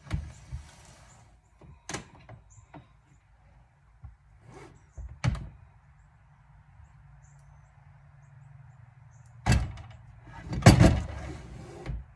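Knocks and clunks of lumber and a miter saw being handled: a few light knocks, then two loud clunks about nine and a half and ten and a half seconds in.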